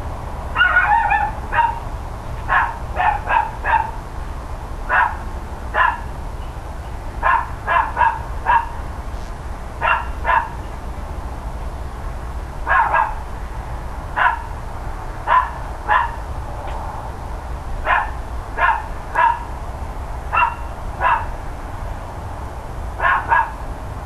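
Dog barking again and again: short barks in ones, twos and threes, a new burst every second or two, over a steady low hum.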